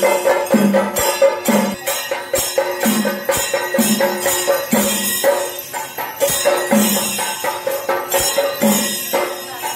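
Chenda melam, the Kerala temple percussion ensemble: chenda drums beating a steady rhythm with ilathalam cymbals clashing continuously over them, under a steady pitched ring.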